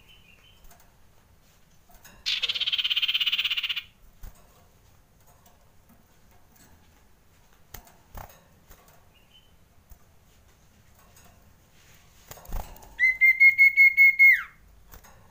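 Male common iora giving alarm calls: about two seconds in, a harsh, rapid rattling chatter lasting about a second and a half, then near the end a long pulsed whistle that holds its pitch and drops sharply as it ends.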